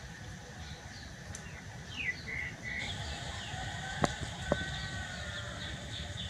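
Small birds chirping over and over, with a rooster crowing in the middle as a drawn-out call. Two sharp clicks come about four seconds in.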